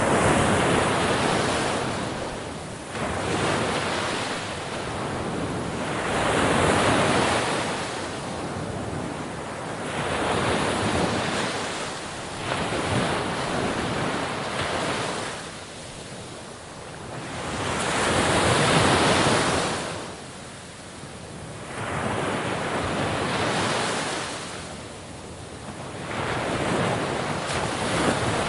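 Sea waves breaking on a shore, the surf swelling and falling away in repeated surges every two to four seconds. Wind noise on the microphone underneath.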